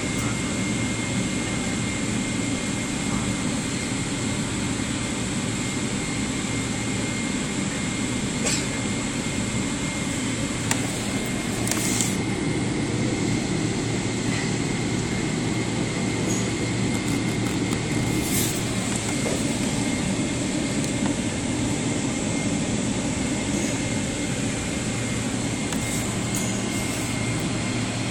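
Steady jet-airliner cabin noise inside a Boeing 777-300: a continuous rush of engine and air-conditioning noise with a low hum and a faint high whine. A few brief clicks and knocks sound over it, the clearest about twelve seconds in and again past the middle.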